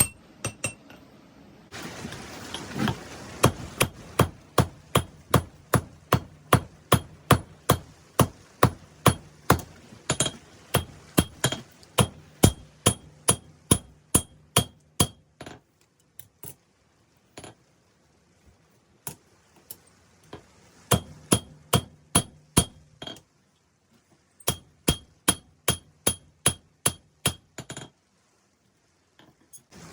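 Hammer blows on hot 5160 steel against an anvil while drawing out a knife blade, about two strikes a second, each with a bright metallic ring. The blows come in runs with short pauses, over a steady low hum that drops out in the pauses.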